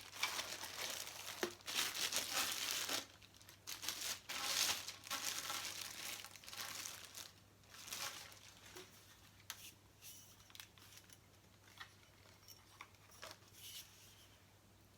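Packaging crinkling and rustling as it is handled, dense and louder for the first half, then fainter and more scattered.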